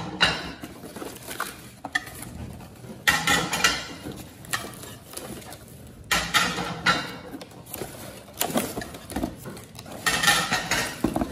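Corrugated cardboard plate separators rustling and scraping as they are pulled out of a box of plates, with small clinks of the plates. It comes and goes in several bouts.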